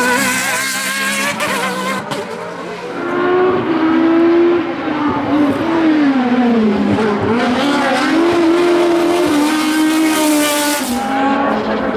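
Racing car engine at high revs accelerating uphill. Its note dips and recovers about halfway through as the car slows for a bend, then climbs again and holds.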